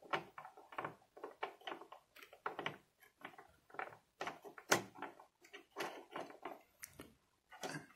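Irregular light metal clicks and clacks from a smart-lock cylinder being pushed and fitted through a mortise lock's cylinder hole, with its parts knocking and sliding against the lock body; the sharpest click comes about halfway through.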